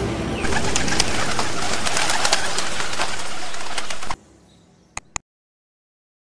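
A loftful of domestic pigeons cooing, with many short sharp sounds among the calls; it cuts off suddenly about four seconds in. Two clicks follow about a second later.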